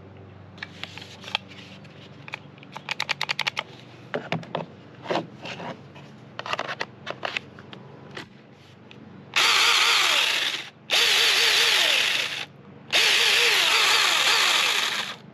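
Battery-powered F.EASY.D 24-volt mini handheld chainsaw running free with no load, its electric motor and chain giving a loud high whine with a wavering rattle, triggered three times in bursts of about one and a half to two seconds near the end. Before the bursts, a run of scattered clicks and rattles.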